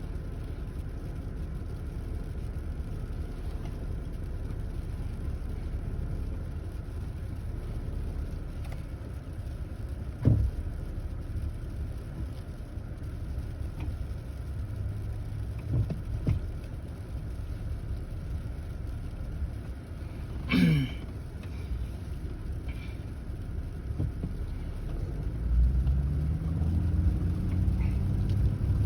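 Car driving on a snowy road: steady low road and engine rumble with a few short thumps. Near the end the engine speeds up, its pitch rising as the car accelerates.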